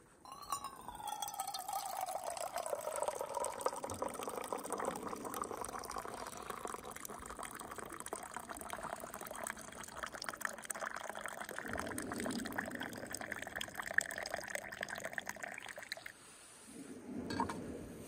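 Hot drink poured in a long, steady stream from a stainless steel vacuum flask into a mug, with a tone that falls over the first few seconds. It stops about two seconds before the end.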